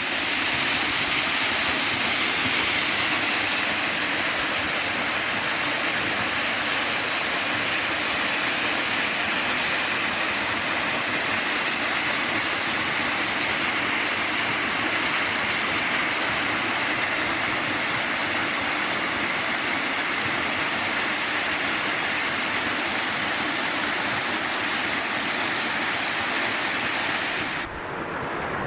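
Waterfall pouring into a pool: a steady rush of falling water. About a second before the end the high hiss cuts off suddenly, leaving a lower rumble.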